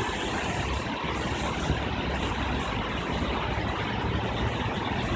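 Street traffic in a jam: car, truck and bus engines idling and creeping, a steady low rumble under an even hiss.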